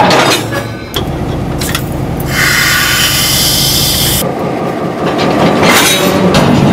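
Railroad diesel locomotive idling with a steady low hum, with scattered metal clanks from the cars. About two seconds in, a loud hiss of compressed air starts, lasts about two seconds and cuts off sharply.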